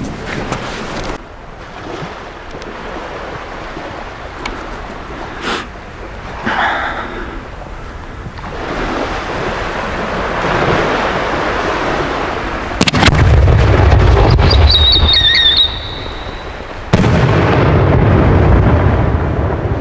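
A 125 mm Vulcan firework display shell with a self-made whistle tail, fired from its mortar. A sharp launch bang about thirteen seconds in is followed by rumbling and a short wavering whistle from the tail. About four seconds after launch the shell bursts with a loud bang whose rumble carries on.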